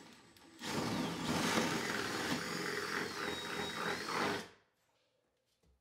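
Power drill boring down through the wooden bottom of an upper kitchen cabinet. It starts about half a second in, runs steadily under load for about four seconds, then stops abruptly.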